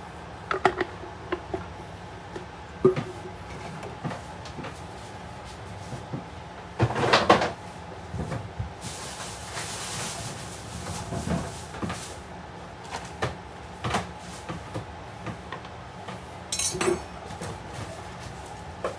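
Kitchen handling sounds: scattered clicks and knocks of containers and utensils being picked up and set down on the counter, with a cluster of knocks about seven seconds in and a short hiss a couple of seconds later.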